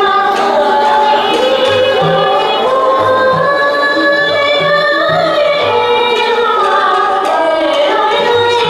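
Traditional Vietnamese water-puppet music: a sung melody over a small instrumental ensemble, with a steady low beat.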